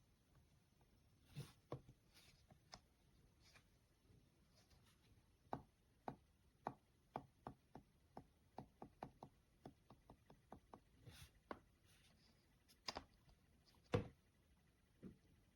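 Faint, irregular clicks and taps of small hard objects being handled: a quick run of them in the middle, and a few louder knocks near the end.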